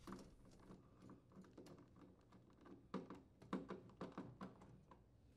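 Faint, irregular clicks and taps of a nut driver turning a screw to fasten the plastic water-line retainers on a refrigerator's back panel, busiest about three to four and a half seconds in.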